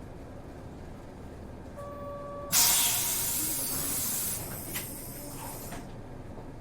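City bus idling at a stop, with a short steady beep about two seconds in, then a sudden loud release of compressed air from its pneumatic system. The hiss holds strong for about two seconds and fades away over the next one and a half.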